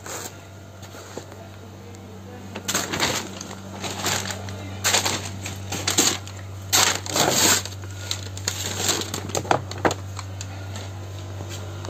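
Irregular clattering and rustling as picture frames and materials are handled, starting about three seconds in and dying away near the end, over a steady low machine hum.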